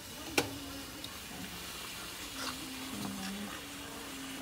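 A single sharp metallic clink about half a second in, from the stainless-steel wire egg rack being handled on the counter as eggs are set into it, followed by a few faint ticks over a low steady hum.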